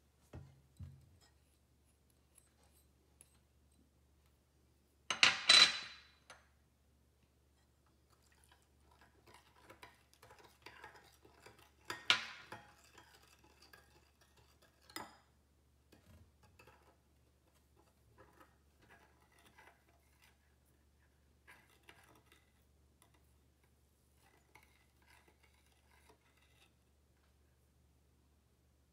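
Metal spoon clinking and scraping against a glass mixing bowl and small ceramic dishes while a fish-sauce mixture is stirred. A burst of clattering comes about five seconds in, sharp single clinks follow later, and lighter stirring clinks are scattered through the rest.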